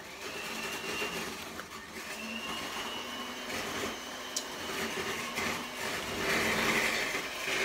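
An electric motor whirring steadily, with a thin high whine through the first half and a little louder near the end.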